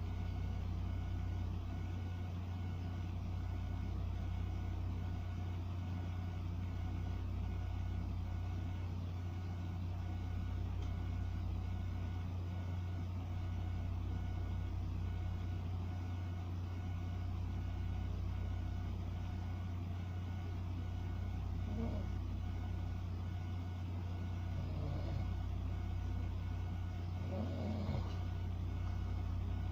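Steady low droning hum that swells and eases about every four seconds, with a few faint brief sounds in the last third.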